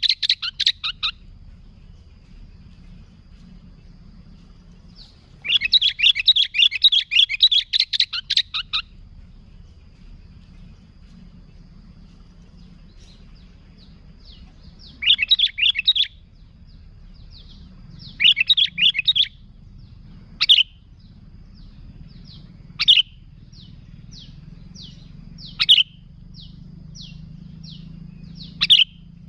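Sooty-headed bulbul singing: bursts of rapid chattering song a few seconds apart, then in the second half single sharp falling calls every two to three seconds, with fainter short repeated notes between them.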